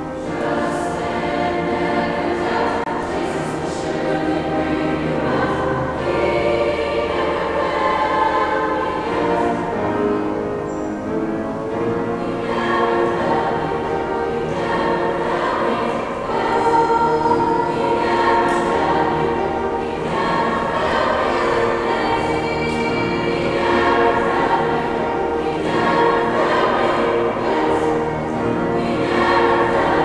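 High school freshman choir singing a choral piece, many voices together on long held chords that change every second or two.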